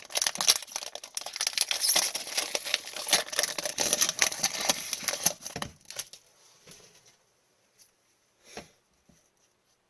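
A pack of Upper Deck hockey trading cards being torn open, its wrapper crinkling for about six seconds, followed by a few soft clicks as the cards are handled.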